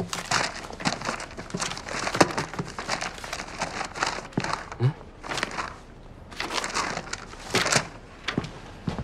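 Sheets of printed paper being handled: squared against a desk, leafed through and set down, giving a run of rustles and crinkles with a few sharper taps.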